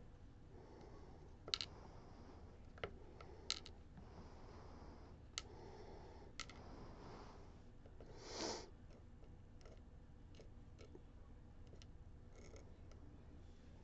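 Faint, scattered clicks and taps of small metal parts from a disassembled Ruko DP2 slider lock being handled, with a brief rustle about two-thirds of the way through.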